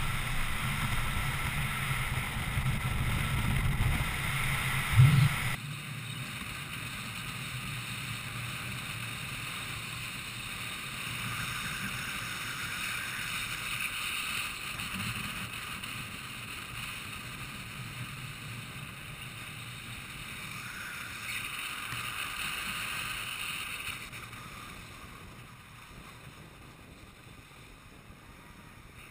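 Rushing wind on a helmet-mounted microphone and the rolling road noise of inline skates at speed on asphalt. A thump comes about five seconds in; just after, the sound cuts abruptly to a quieter, thinner rush that fades further near the end.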